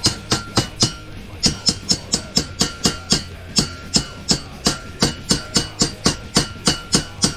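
Chipping hammer knocking slag off fresh welds on a steel frame: rapid, even metal strikes, about three to four a second, each with a short ring, with a brief pause about a second in.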